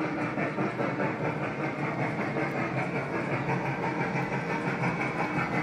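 G-scale MTH Big Boy model steam locomotive running past, a steady, noisy running sound of its steam effects and wheels rolling on the track.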